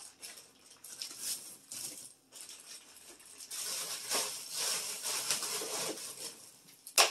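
Plastic bags of frozen meat rustling and crinkling as they are pushed and rearranged in a freezer's shelves and wire baskets, busiest in the second half, with one sharp knock near the end.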